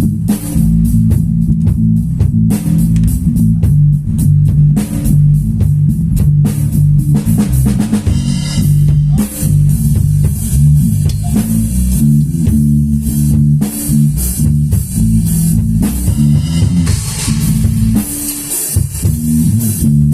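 Instrumental rock music: heavy, low guitar and bass riffing with a drum kit, no vocals.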